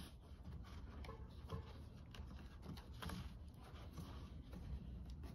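Faint rustling and light scattered ticks of a webbing cam strap being handled and tied off around a roof-rack bar.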